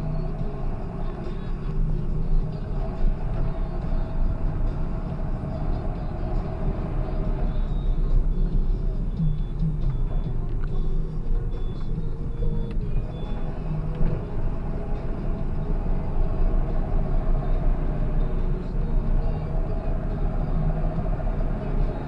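John Deere 7530 tractor's six-cylinder diesel engine running as the tractor drives, heard from inside the cab with road and drivetrain noise. The engine note shifts a little around the middle as the revs change.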